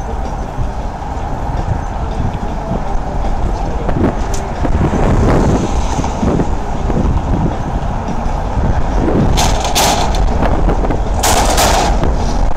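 Wind buffeting the microphone over steady bridge traffic rumble. Near the end come two short bursts of hiss, each about half a second long.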